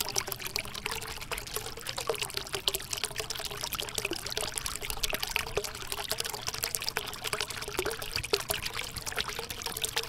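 Water from a small tabletop waterfall fountain trickling and splashing steadily into its basin as many small drips, with a faint steady hum underneath.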